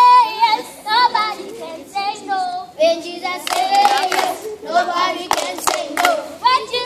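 A group of children singing together, with hand claps through the song.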